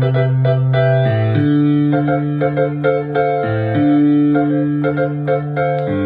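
Nord Electro 3 stage keyboard playing a passage of held low notes that change every second or two, under short repeated chords higher up.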